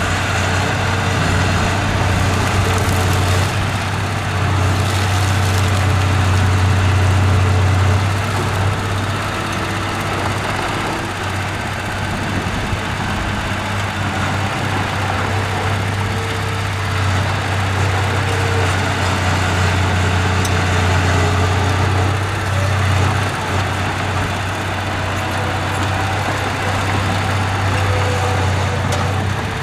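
Diesel engine of heavy earthmoving machinery running steadily at work, with a deep low hum; it eases off slightly about a third of the way in and picks up again.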